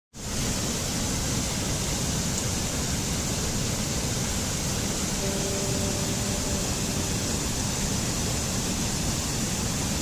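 Mountain stream cascading over boulders in small falls: a steady, full rushing of water with no change in level.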